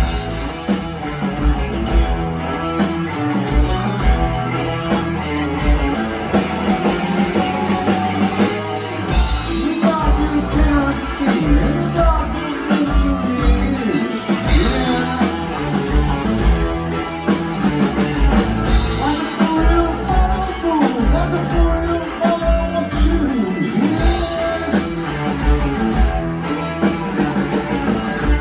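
Rock band playing live: electric guitar, bass and drums driving a steady beat, with bending guitar notes.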